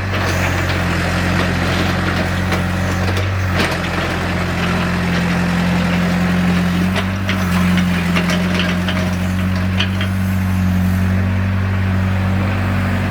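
Diesel engine of a 1995 Caterpillar E70B excavator running steadily, its note shifting up and down a few times as the machine works. Scattered sharp clicks and knocks come in over the middle part.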